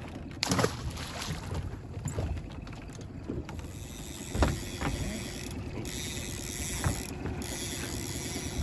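Boat's outboard motor running steadily, with a few sharp knocks, the loudest about four and a half seconds in.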